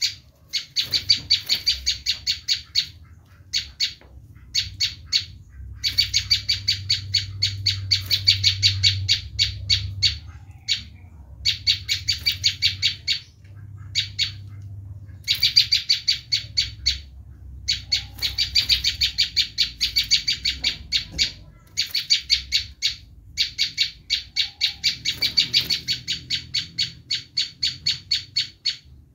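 A prenjak lumut (a prinia) giving its agitated 'screaming' call. It is a rapid, rattling run of sharp, high notes repeated in bursts of one to three seconds with short breaks between, the kind of call used as a lure for wild prinias.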